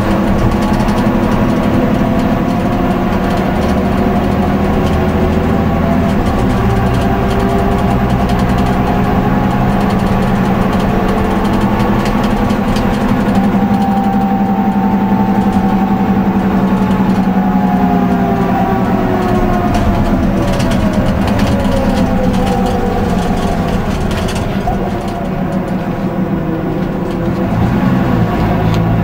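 Leyland Lynx II single-decker bus driving along, heard from inside the passenger saloon: the engine runs steadily with a whine that slowly rises and falls in pitch. It eases off briefly near the end, then pulls again.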